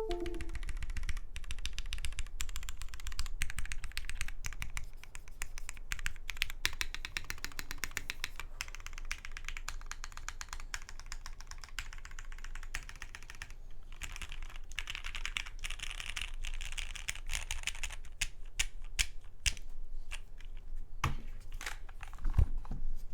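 Mechanical keyboard being typed on: a Matrix 2.0 Add with an aluminum plate, lubed Cherry MX Black linear switches and CRP keycaps, giving a fast, steady run of key clacks. Near the end the typing thins to a few single, heavier key strikes.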